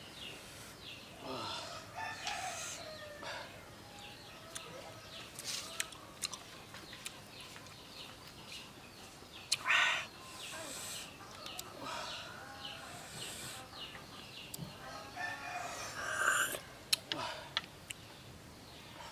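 A rooster crowing a few times, with chickens clucking, among scattered sharp clicks and taps.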